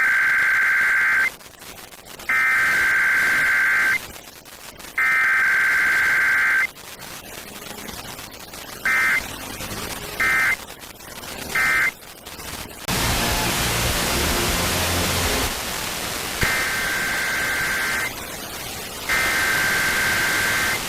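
Emergency Alert System SAME header: three digital data bursts of about a second and a half each, followed by three short end-of-message bursts with no attention tone or message between them. Then a few seconds of static hiss, and the header bursts of the next alert begin about sixteen seconds in.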